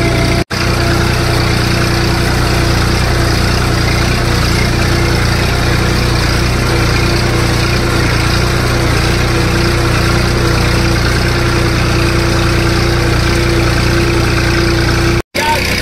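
Tractor diesel engine running steadily under load while pulling a harrow through tilled soil, heard from the driver's seat. The sound cuts out for an instant about half a second in and again near the end.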